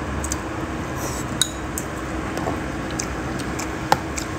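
Chopsticks clicking against a ceramic bowl: several light, scattered clinks over a steady background hum.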